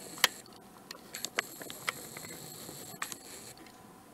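Faint scattered clicks and light taps of handling, over a thin high whine from a camera's lens motor that starts and stops as the lens hunts for focus.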